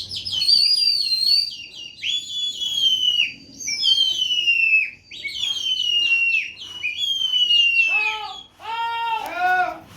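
Bird song: loud, high whistled phrases that slide downward in quick stepped notes, repeated several times. Near the end come a few lower, arching notes.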